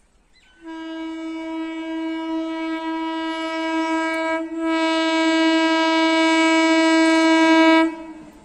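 Horn of an approaching electric multiple unit (EMU) local train, sounding two long blasts on one steady tone: the first about four seconds, then a brief break, then a second of about three seconds. The horn grows louder as the train draws nearer.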